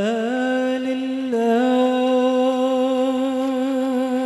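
A man's solo voice sings an Arabic devotional song (inshad) through a microphone. He holds one long, wordless, ornamented note that steps up in pitch at the start and wavers, with no instruments behind it.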